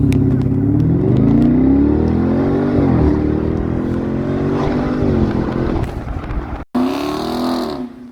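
Car engine revving, its pitch climbing and falling several times. Near the end it cuts off abruptly and another short rev rises and falls.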